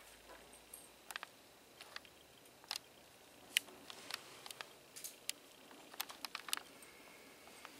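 Cat crunching dry kibble from a metal bowl: faint, irregular sharp clicks and crackles, a few each second.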